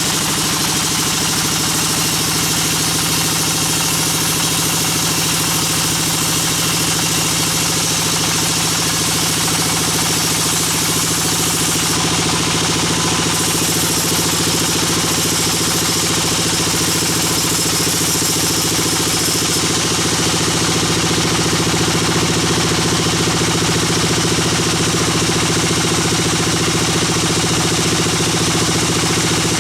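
Sawmill bandsaw machinery running, a loud steady engine-like drone with low steady tones that does not let up.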